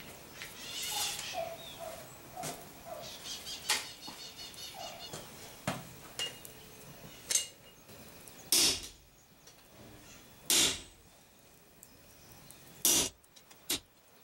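Hand hammer striking a hot-cut chisel held on red-hot leaf-spring steel on an anvil, cutting away excess metal. The blows come as single sharp metallic strikes about one to two seconds apart, with lighter knocks in the first few seconds.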